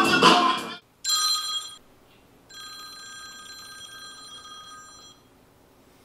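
A smartphone ringing with an electronic ringtone: a short ring about a second in, then a longer ring lasting about two and a half seconds. Background music with a beat plays at the start and cuts off just before the first ring.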